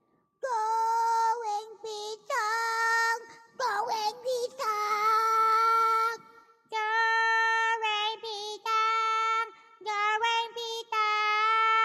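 A high-pitched voice making long, drawn-out wailing calls, about seven of them, each held for a second or two at nearly the same pitch with short breaks between.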